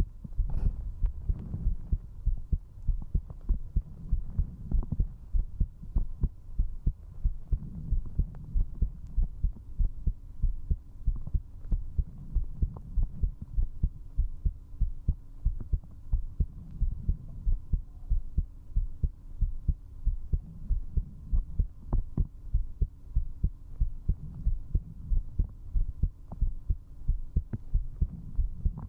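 A person's heartbeat, heard up close through a binaural microphone against the chest: a fast, strong, steady run of low double thumps. The rate is raised from drinking alcohol. A faint steady hum runs underneath.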